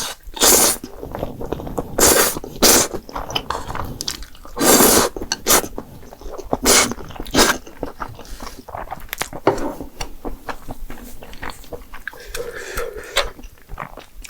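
Close-miked eating of jjapagetti noodles and green onion kimchi: steady chewing, with about seven loud, short bites in the first eight seconds and softer chewing after.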